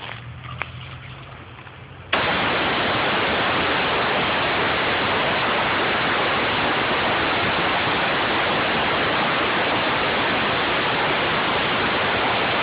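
Air spade switching on about two seconds in, after a low hum: a sudden, loud, steady rush of compressed air blasting soil away from the base of a tree trunk in a root collar excavation.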